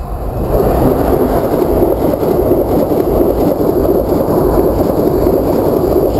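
HST (InterCity 125) passing close at speed: a loud, steady rumble and rush of wheels on rail and coaches going by, rising about half a second in as the power car reaches the crossing.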